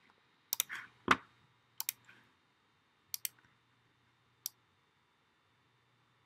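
Computer mouse clicks, about eight, several in quick pairs, the loudest just after a second in, stopping after about four and a half seconds.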